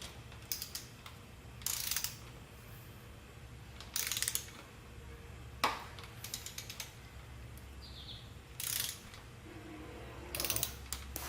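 Ratchet torque wrench clicking in short bursts as it turns small M6 cover bolts on a Vespa GTV-300 scooter's belt-drive casing, over a steady low hum. One bolt keeps turning without ever reaching its torque, because the thread in the casing is stripped.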